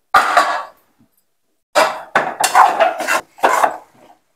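Metal cookware clanking as pots are moved on the stove, then a metal ladle scraping and knocking against a kadai in several quick strokes as frying onions and tomatoes are stirred.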